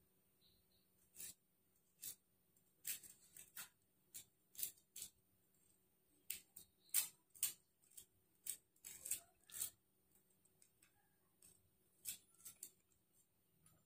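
Brittle shells of dried tamarind pods cracking as fingers break and peel them: scattered short cracks and clicks, some in quick bunches, with a pause of about two seconds near two-thirds through.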